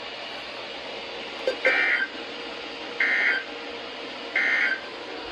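Three short two-tone data bursts from a NOAA Weather Radio broadcast, about a second and a half apart, over steady radio hiss. They are the SAME end-of-message code that closes the flood warning just read.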